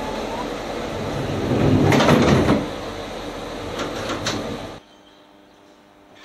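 Sliding doors of an Island Line Class 483 (ex-London Underground 1938 stock) train closing: a swelling rush of noise as the doors slide shut about two seconds in, then a few sharp knocks as they meet and lock. The sound drops away suddenly near the end.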